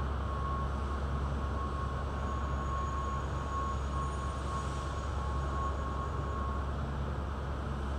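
Steady low machinery rumble with a thin, constant high whine that stops about seven seconds in.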